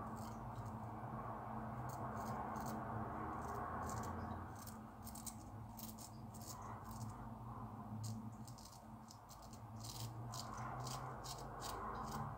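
Shavette razor with a Gillette Super Stainless 7 O'Clock blade scraping through a week's stubble under shaving-soap lather: a series of short, crisp rasps, one per stroke, in uneven runs. The blade catches on the hairs now and then, which the shaver puts down to these Gillette blades.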